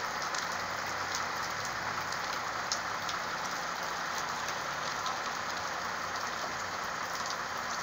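Steady rain falling, with many small ticks of individual drops.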